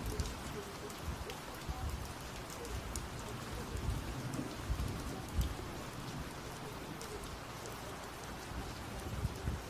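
Rain falling steadily, with scattered sharp drop ticks and uneven low rumbles during a thunderstorm.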